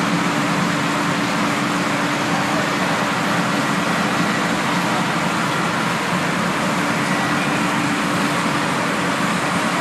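Refrigerator recycling plant machinery running: a steady, even mechanical noise with a constant low hum.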